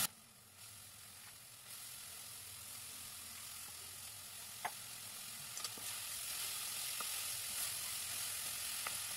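Freshly added spinach frying in a metal kadai with a quiet, even sizzle that builds up over the first couple of seconds. A few light knocks of a spatula against the pan come as the leaves are stirred.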